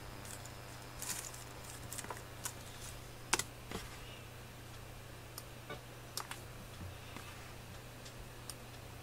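Irregular light clicks of computer keys being typed on, a dozen or so scattered taps with the sharpest about three seconds in, over a low steady hum.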